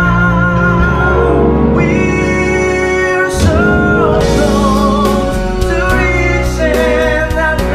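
A man singing a slow ballad over a backing track, holding long notes with vibrato over a full bass line; a steady drum beat comes in about halfway through.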